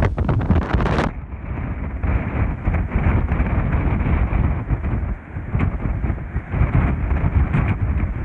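Strong wind buffeting the microphone in uneven gusts. About a second in, the sound turns abruptly duller, losing its high end.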